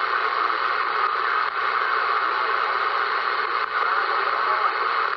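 CB radio receiver hiss and static on an open channel during skip conditions, a steady rushing noise with faint wavering traces of distant signals buried in it about four and a half seconds in.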